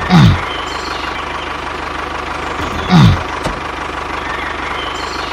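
Engine running steadily, with a loud tone that falls in pitch heard twice, about three seconds apart.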